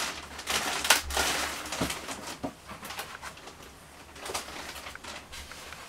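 Thin plastic bag rustling and crinkling in irregular bursts as a foam model-jet fuselage is pulled out of it and handled, loudest around one second in.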